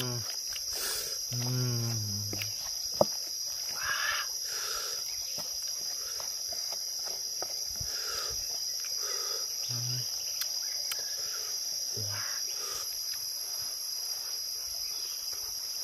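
Steady high-pitched drone of insects, with a short voice-like sound in the first two seconds and a single sharp click about three seconds in.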